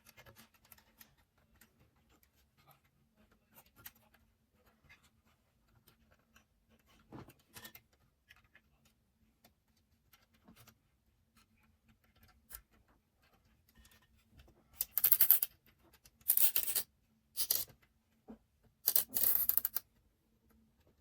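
Hands working cables and small parts inside a compact PC case: faint clicks and rustles, then four loud scratchy scraping sounds, each under a second, between about fifteen and twenty seconds in.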